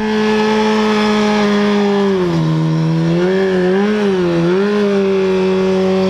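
Car engine held at high revs with a steady exhaust note; the pitch drops about two seconds in, wavers up and down briefly, then holds steady.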